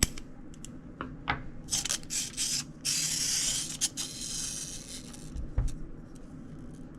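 Scissors cutting a tag off a small plastic toy: scattered sharp snips and clicks, with about a second of scratchy noise around three seconds in.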